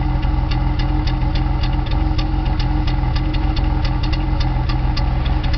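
BMW E36 323i's M52 2.5-litre straight-six idling, with a steady low hum and irregular sharp ticks about three a second. It is the rough, shaky idle that the owner traced to a faulty MAF sensor, along with misfires on cylinders 4, 5 and 6.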